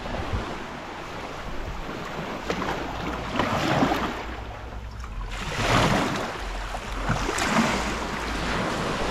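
Shallow seawater washing and sloshing at the shoreline in swells roughly every two seconds, loudest about six seconds in. Wind rumbles steadily on the microphone.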